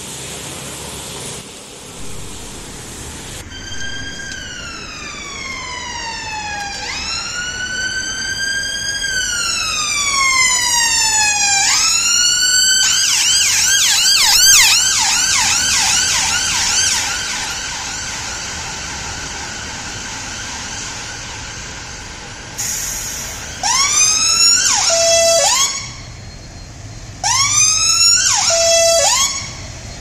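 UK ambulance siren on an emergency run: a slow wail sweeping down and back up, switching about twelve seconds in to a fast yelp, then near the end two short bursts of rapid rising whoops, over road traffic.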